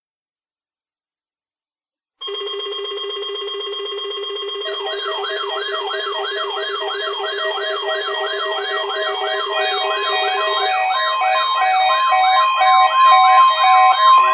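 Electronic siren-like tones. After about two seconds of silence, a steady chord of tones comes in over a fast pulsing buzz. About five seconds in, a warbling siren pitch joins, rising and falling about two and a half times a second. The whole sound grows gradually louder, and the buzz drops out near the end.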